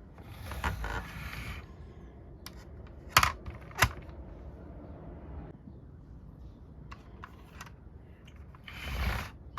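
Hard plastic clicks and rustling from handling a G.I. Joe Snowcat toy vehicle and action figure, with two sharp clicks, the loudest sounds, about three and four seconds in, and a few lighter clicks later.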